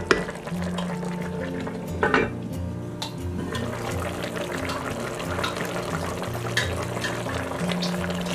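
A pot of chicken simmering in liquid, with a fine bubbling and sputtering. Near the start and again about two seconds in, a spoon or the lid knocks sharply against the pot. Background music with a low bass line runs under it.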